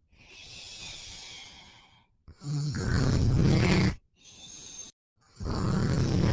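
A man snoring in a steady in-and-out rhythm. Two loud snores of about a second and a half each alternate with quieter, breathy out-breaths, and a third snore begins about five seconds in. The sound drops to dead silence for a moment between some breaths.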